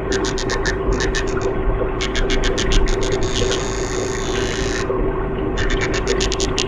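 Danionella cerebrum fish in a tank making four short bursts of rapid, sharp clicks, over a steady hum and low rumble. The clicks are the fish's pulses, made by striking the swim bladder, and are thought to be a communication signal.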